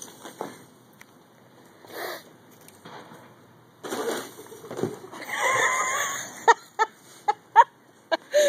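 A person landing on a bare box spring laid on the ground: a noisy crash about four seconds in, then a wavering squeal of about a second and a run of short, sharp squeaks.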